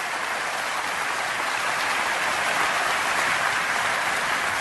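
Audience applauding, swelling to its loudest midway and easing off near the end.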